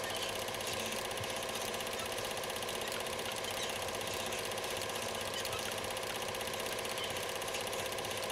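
Film projector running, a steady, fast and even mechanical clatter with a faint hum under it.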